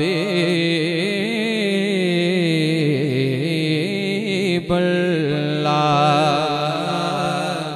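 A man singing a naat unaccompanied into a microphone, drawing out long, wavering melismatic notes. His voice trails off near the end.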